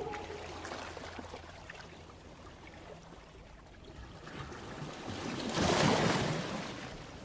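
Recorded sea surf in a music soundtrack: a hiss of waves that swells to a peak near the end and washes away.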